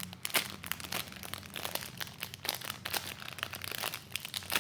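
Plastic crinkling and rustling as a squishy toy is handled: many short, irregular crackles, with a low steady hum underneath.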